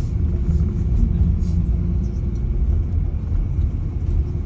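Steady low rumble of a moving bus, engine and road noise.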